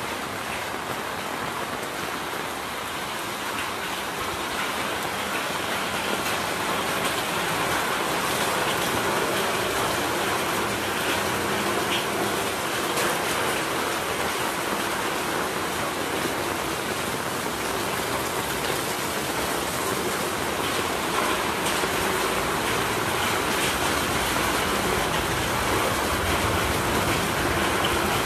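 Steady rain falling and splashing on wet pavement, an even hiss that grows a little louder a few seconds in.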